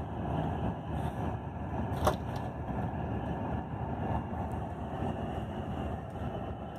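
Steady engine and road rumble of a long-distance coach heard from inside the cabin while cruising on the highway, with a single sharp knock about two seconds in.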